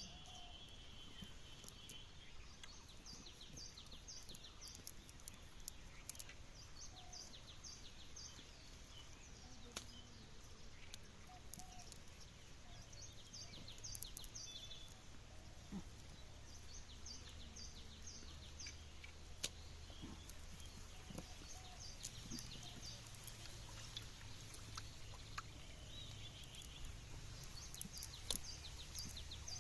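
Outdoor ambience with a bird giving short runs of four or five high chirps, repeated every few seconds, over a faint low hum.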